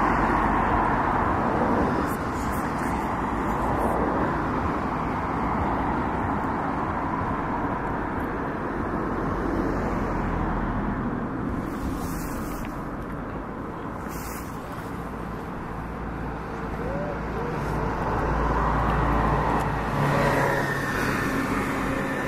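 Road traffic: a steady rumble of cars going by, swelling as a vehicle passes near the end.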